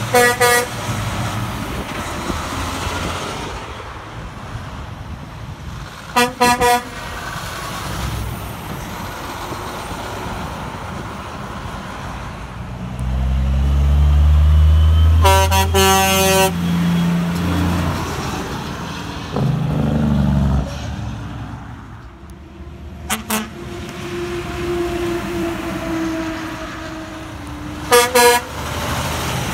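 Dual air horns on passing Kenworth dump trucks sounding short double blasts: Hadley H02102A horns on a T880 at the start and again near the end, and another short double blast about six seconds in. About fifteen seconds in, a T800's Grover 2000 dual horns give a longer blast over its heavy diesel engine pulling hard, with road traffic throughout.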